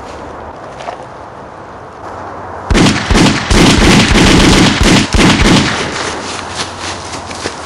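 A rapid volley of gunshots, many shots packed into about three seconds starting near the three-second mark, followed by a fading echo.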